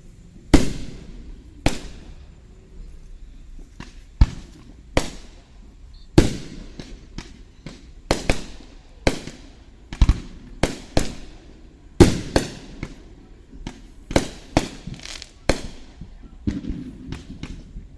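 Aerial fireworks bursting in quick succession, a sharp bang every second or so, each followed by a rolling echo, heard close to the launch site through a binaural microphone.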